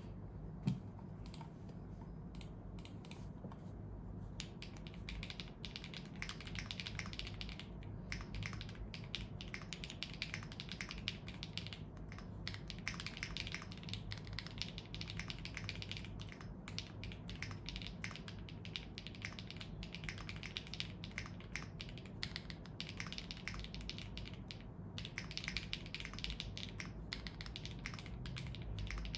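Typing on a gasket-mounted Lucky65 mechanical keyboard with Akko Radiant Red linear switches, a POM plate and full foam dampening. A few scattered keystrokes in the first four seconds, then fast continuous typing.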